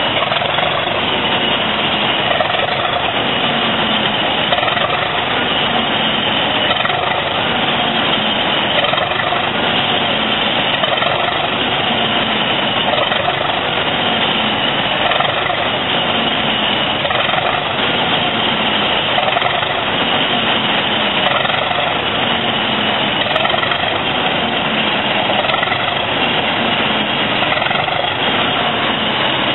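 English Electric 12CSVT V12 diesel engine of Class 37 locomotive 37425 idling steadily while the locomotive stands, with a slow, even swell about every two seconds.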